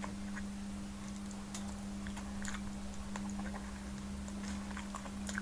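Close mouth sounds of someone eating with her fingers: soft chewing with small wet clicks and smacks scattered irregularly, over a steady low hum.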